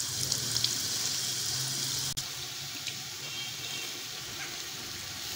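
Tamarind water pouring through a plastic strainer into a pot of fried masala, a steady trickling pour that gets quieter about two seconds in.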